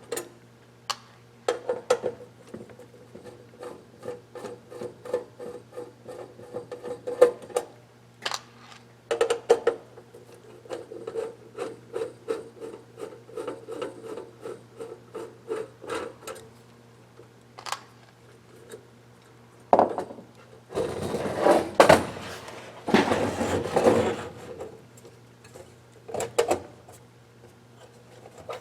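Hand disassembly of an electronic unit's housing: a screwdriver turning screws, making a long run of short rasping clicks, about two to three a second. This is followed by louder scraping and handling of the casing parts.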